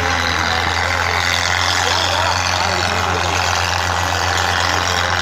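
Tractor diesel engine running at a steady pitch, under the scattered chatter and calls of a crowd of onlookers.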